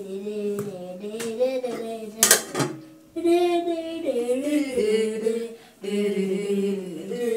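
A woman singing a tune in long held notes, with one sharp clatter about two seconds in.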